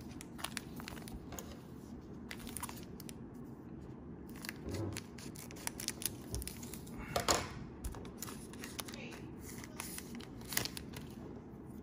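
Crinkling plastic and card stock rustling as a trading-card pack and its cards are handled, in irregular crinkles and light clicks, loudest about seven seconds in.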